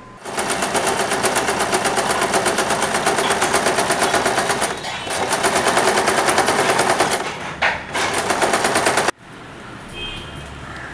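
Sewing machine running at speed, its needle stitching fabric in a rapid even rhythm, easing off briefly a couple of times and cutting off abruptly about nine seconds in.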